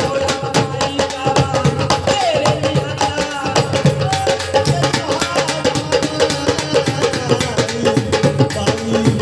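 Live Indian folk devotional music: a bowed string instrument plays a gliding melody over a fast, steady beat on a small hand drum, with a man singing.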